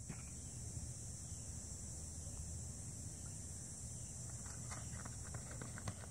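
A steady high insect drone with a low outdoor rumble beneath. About four and a half seconds in, a sprinter's quick footfalls on the rubber track start up and come faster as he accelerates out of his crouched start.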